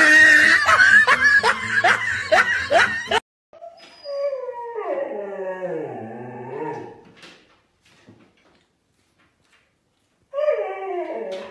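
Loud music for about three seconds, cut off abruptly. Then a Siberian husky howls: one long whining howl that slides down in pitch over about three seconds, and a shorter falling howl near the end.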